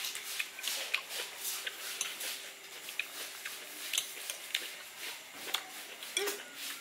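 Irregular light clicks and taps of cutlery and dishes being handled at a meal, about two or three a second, over a faint steady hum.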